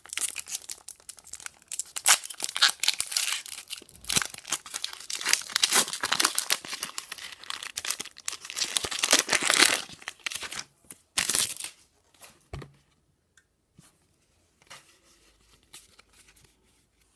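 Foil Pokémon booster pack wrapper being torn open and crinkled, a dense crackling that lasts about twelve seconds. After that come only faint rustles and a single soft knock.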